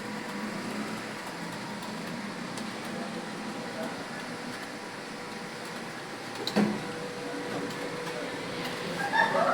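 Computer keyboard being typed on at speed: faint rapid key clicks over a steady room hum, with one louder knock about six and a half seconds in.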